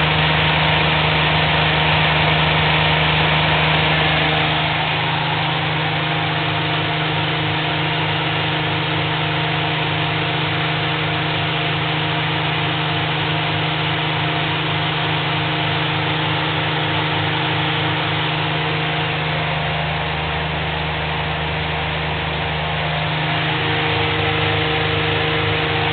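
Privileg washing machine and tumble dryer running together: a steady motor hum with several steady tones. The tones shift a few seconds in and twice more later on as the motors change speed.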